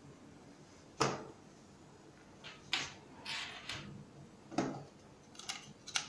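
Hard plastic alarm host units being handled on a wooden table. There is a sharp knock about a second in, then a run of clicks and taps as one unit is lifted off the stack and its USB ports are handled.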